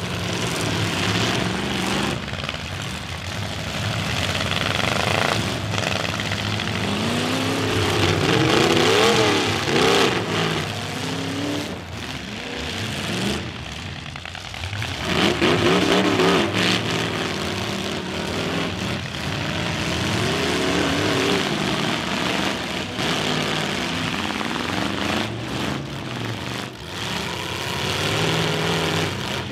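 Several full-size demolition derby cars' engines running loud and revving up and down over one another as they ram, with a few sharp knocks of collisions.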